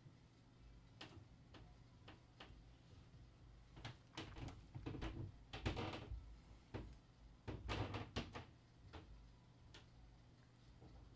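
Trombone slide tubes being handled on a workbench: a scatter of quiet knocks and clicks, with two busier spells about four and eight seconds in.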